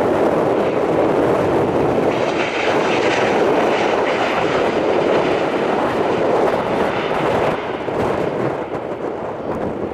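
Boeing 737-800 jet engines running loudly on a landing, with a higher whine over the steady noise for a few seconds in the middle that eases off after about seven seconds.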